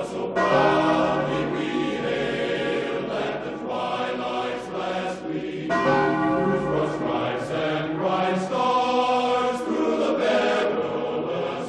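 Solemn choral music with bell-like tones: sustained chords that shift every couple of seconds.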